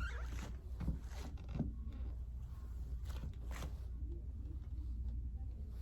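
Brief scratchy rustling and handling noises, a few in the first second and a half and a couple more about three seconds in, over a steady low hum.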